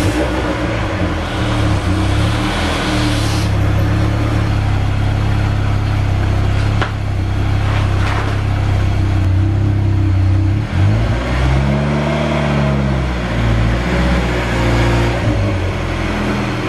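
Volkswagen Mk1 Golf Cabriolet's four-cylinder petrol engine idling steadily, with one short rev that rises and falls about twelve seconds in.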